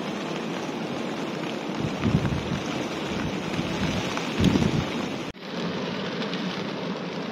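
Heavy rain driving against a canvas tent, a steady hiss, with two low rumbling gusts of wind about two seconds and four and a half seconds in. The sound drops out for an instant a little past five seconds, then the rain carries on.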